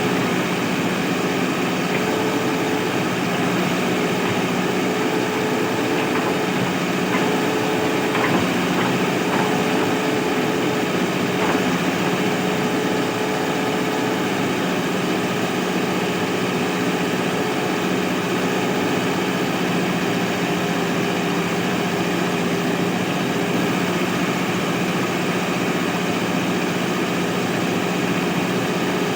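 Diesel engine of a Mahindra backhoe loader running steadily at a constant pitch, with a couple of faint knocks.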